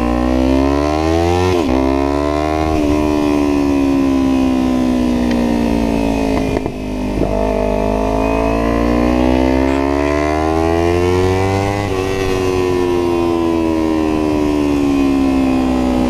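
Kawasaki Ninja 300's parallel-twin engine through a Yoshimura full exhaust, with wind noise on the helmet microphone. The revs climb and drop sharply with a quick upshift about one and a half seconds in, climb again, then ease down, and a long slow rise and fall follows as the bike accelerates and rolls off the throttle.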